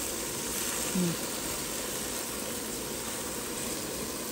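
Salmon fillets sizzling steadily on the grate of an electric indoor grill.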